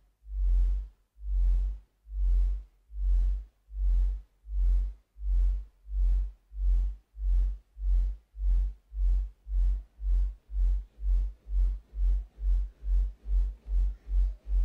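Electronic music of deep, evenly spaced bass pulses that speed up steadily, from a little over one a second to about three a second.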